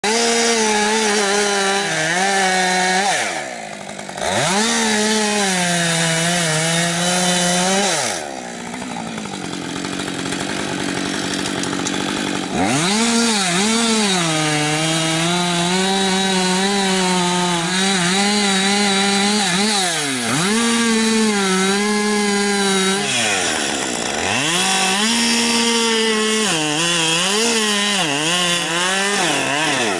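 Two-stroke chainsaw cutting into a birch trunk at full throttle, its pitch sagging and recovering as the chain bites. The revs drop sharply about four seconds in and again near twenty and twenty-four seconds, and the saw runs at low revs for a few seconds from about eight seconds in.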